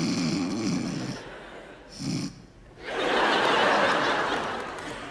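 Loud, exaggerated snoring: one long rattling snore, then a short second snore about two seconds in. A swell of audience laughter follows, rising and then fading.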